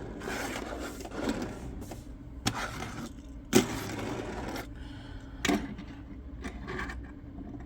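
A diecast toy car and its plastic packaging being handled: several sharp clicks and a couple of brief rustles.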